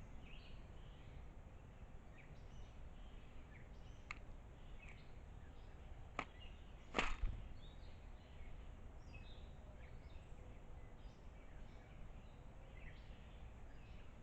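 Small birds chirping with short, scattered high calls over a steady low outdoor rumble. A sharp click comes about six seconds in, and a louder knock follows about a second later.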